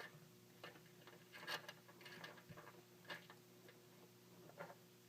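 Faint scattered clicks and rustles of hands working the thin wires of a charger cable, about half a dozen small ticks over a quiet background.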